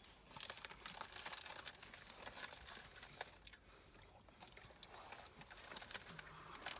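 Faint crinkling and scattered small clicks of a food wrapper being handled.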